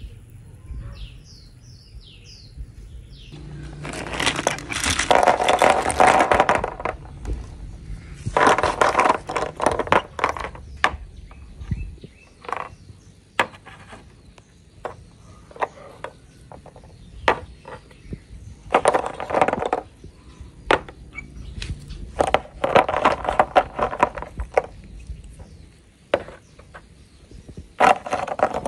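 Small plastic toy figures handled and set down on a hard tabletop: scattered sharp clicks and knocks, with several longer stretches of scraping noise.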